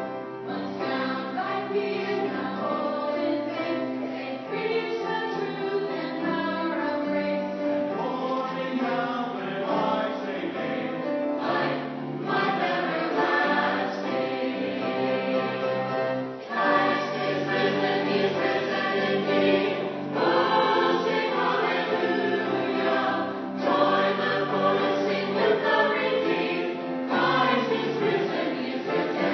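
Church choir of mixed men's and women's voices singing a Christian song together.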